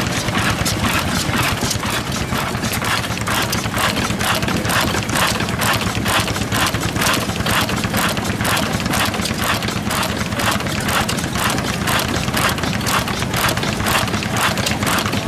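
1917 Austral 3.5 hp stationary oil engine running steadily, with an even, sharp clack about three times a second over a low rumble.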